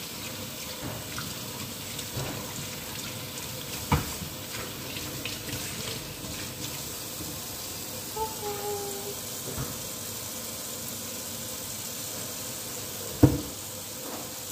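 Kitchen tap running steadily into the sink while a fish is rinsed under the stream. Two sharp knocks cut through, one about four seconds in and a louder one near the end.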